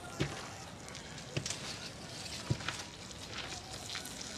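Three dull, slow footsteps on stone, a little over a second apart, over a faint steady crackling hiss, with a few small sharp clicks between them.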